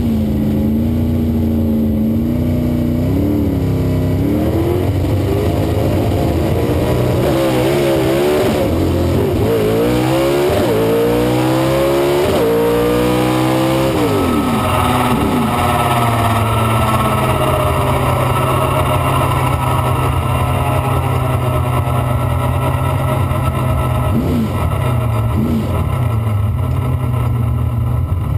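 1968 Camaro's small-block Chevrolet V8 heard inside the cabin: revs held and wavering at the line, then a full-throttle run with the pitch climbing and dropping several times as the driver shifts up through the 4-speed manual. About 14 s in the driver lifts; the engine winds down and settles to a steady low-speed run, with a couple of short throttle blips near the end.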